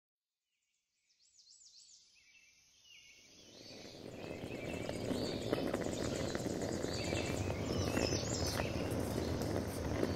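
Outdoor ambience fading in from silence: birds chirping, over a steady background hum of insects and outdoor noise that swells over the first few seconds and then holds level.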